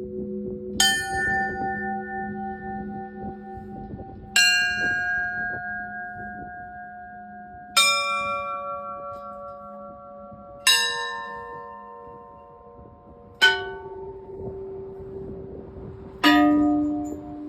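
Orthodox church bells struck one at a time: six single strokes about three seconds apart, each bell lower than the last and left to ring out. This is the slow memorial ringing (perebor), going from the small bells down to the large ones.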